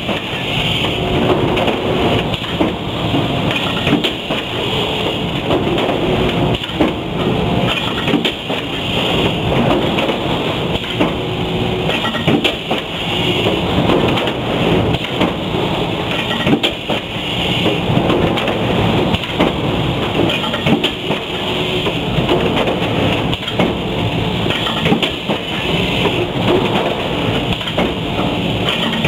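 Loud, continuous mechanical clatter and rattling, peppered with frequent small knocks.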